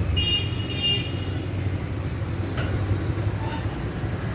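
Two short high chirps from a young caged bird in the first second, over a steady low hum. A couple of faint clicks follow around the middle.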